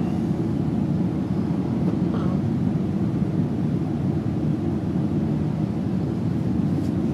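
A steady low rumble at an even level, with no rhythm of breaths rising and falling.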